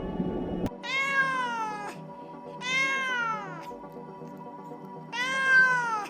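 A cat meowing three times, each meow about a second long, rising then falling in pitch, over soft steady background music.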